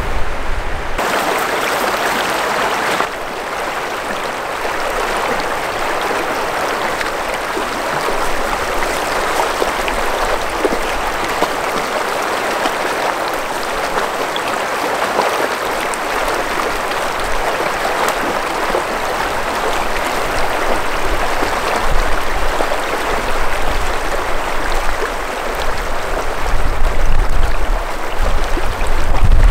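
Shallow river running over rocky riffles: a steady, even rush of flowing water. A low rumble creeps in near the end.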